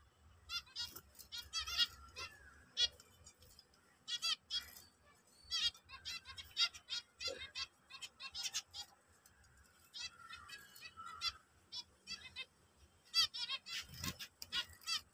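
Several zebra finches calling together: many short honking calls coming in quick clusters with brief gaps between them.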